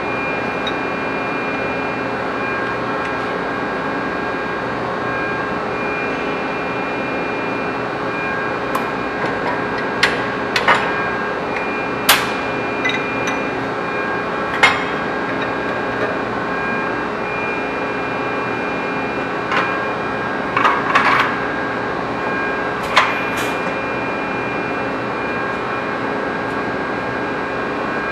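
Automated sheet-metal production-line machinery running with a steady hum and a few fixed whining tones, broken by sharp metallic clanks at irregular intervals, several of them bunched together in the middle and later part.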